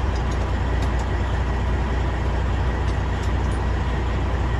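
Heavy truck's diesel engine idling steadily with a low, even hum, with a few faint ticks over it.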